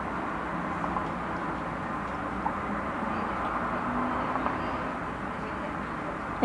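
Steady low background rumble and hiss, with a few faint soft clicks.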